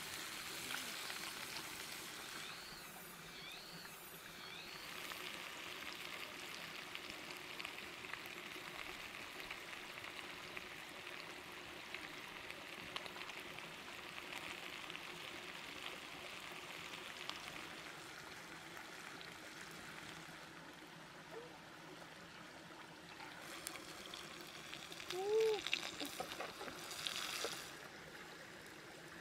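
Beef sausage sizzling on a pan over a wood fire, a steady frying hiss. Near the end come a few louder knocks and scrapes and a couple of short chirps.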